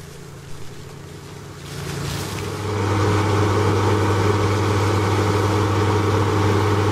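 Finn hydroseeder running while spraying slurry: a steady engine hum, faint at first, that turns loud about two and a half seconds in and holds steady.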